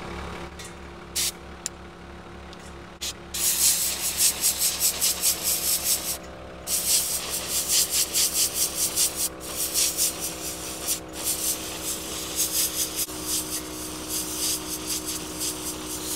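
A brush scrubbing a dirty filter assembly wet with brake cleaner, in quick rhythmic strokes of about two or three a second that start about three seconds in, with a short pause a few seconds later. An engine runs steadily underneath.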